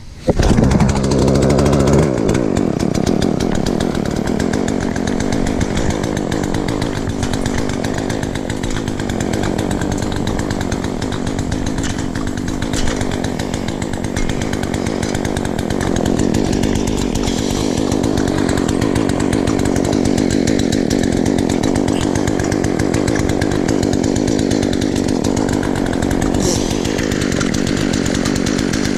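Chainsaw running steadily at high revs, cutting wood, with its engine note shifting in the first two seconds before settling.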